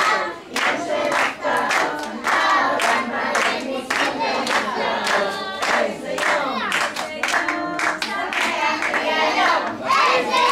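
A group of young children singing a song together, clapping their hands along with it.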